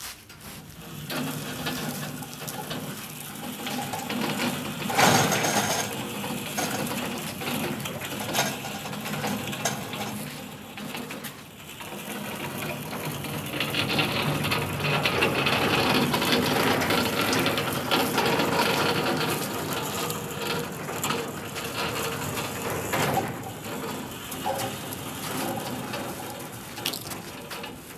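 Steel car-body rotisserie carrying a VW Karmann Ghia shell being pushed across concrete on its caster wheels: the wheels rolling and the metal frame rattling and clicking, with a louder clank about five seconds in. The sound swells again in the middle and fades off near the end.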